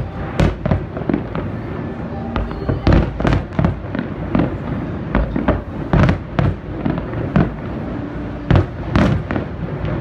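Aerial fireworks shells bursting: a rapid, irregular run of loud bangs, several a second.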